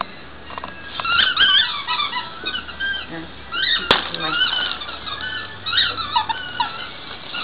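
A dog's squeaky toy squeaks over and over, in many short squeaks that rise and fall in pitch, as a dog works it. There is one sharp click about four seconds in.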